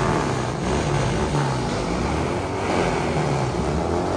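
A car engine running, its pitch wavering slightly up and down.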